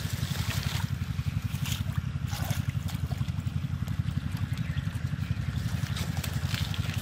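Hands splashing and grabbing in shallow muddy water, with a few brief splashes, over a small engine running steadily and evenly underneath.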